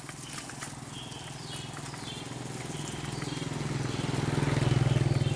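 A vehicle engine running with a low, even hum that grows louder as it approaches, loudest near the end. Short high bird chirps come over it in the first half.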